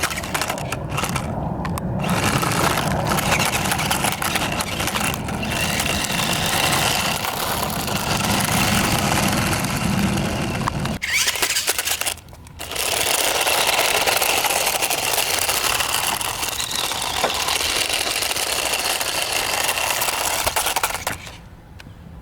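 Battery-powered SGILE Tornado Twister RC stunt car's electric drive motors whirring steadily as it drives over rough ground. The sound drops out briefly about 11 and 12 seconds in and sinks low near the end.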